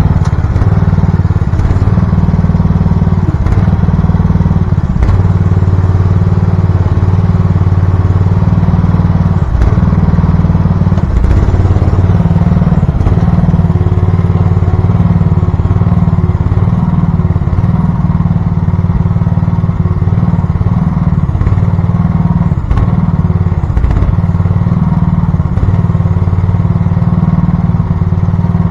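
Engine of a VC13C mini excavator running steadily at a constant pitch, close by and loud, with a few faint clanks.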